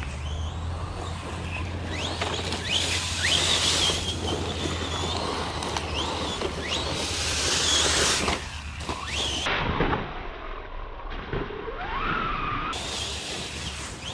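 Losi Lasernut RC car's electric motor whining, the pitch rising and falling with repeated bursts of throttle over a steady rush of noise. A longer rising whine comes near the end.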